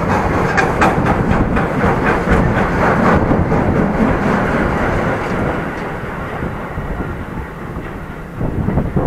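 Freight train of empty double-deck car-carrier wagons rolling past, wheels clicking over the rail joints. The clatter fades away after about five seconds as the last wagon passes.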